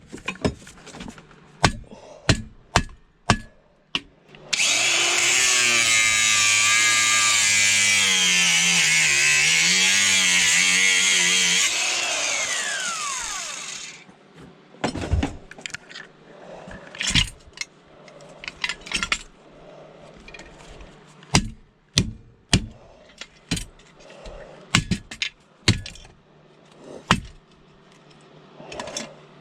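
Angle grinder switched on about four seconds in, cutting for about seven seconds into a cast aluminium part with its pitch dipping and wavering under load. It is then switched off and winds down with a falling whine. Knocks and clatter from handling the workpiece come before and after.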